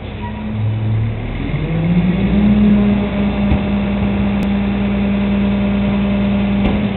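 Refuse truck's diesel engine, off-screen: the revs climb between one and two seconds in, then hold at a steady, loud pitch.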